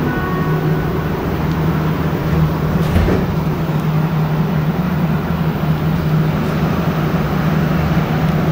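Inside a Montreal Metro AZUR train car as it pulls out of a station: a steady low hum and rumble from the train, with a single knock about three seconds in.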